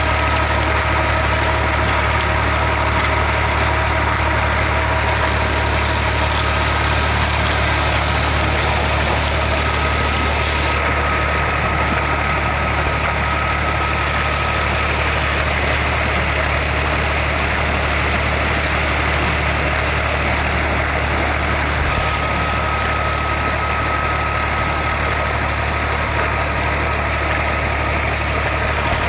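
Ghazi tractor's diesel engine running at a steady speed, driving a tubewell pump through its shaft, with water gushing steadily from the pump's outlet pipe and splashing into a concrete tank.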